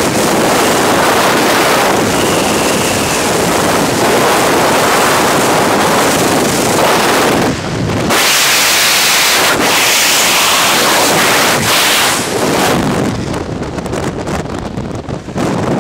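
Freefall wind rushing over a skydiver's helmet-mounted camera microphone, loud and steady. About three-quarters of the way through, the parachute opens and the rush drops to a weaker, unsteady wind.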